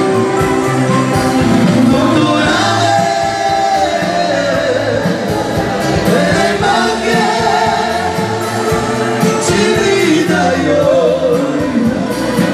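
Romani dance band playing with a singer over a steady, driving beat.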